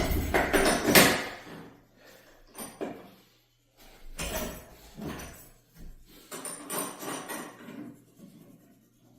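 Wooden board being shifted and set down on a miter saw's table, with knocks and scraping. The loudest clatter comes in the first second and a half, and weaker knocks follow every second or two. The saw motor is not running.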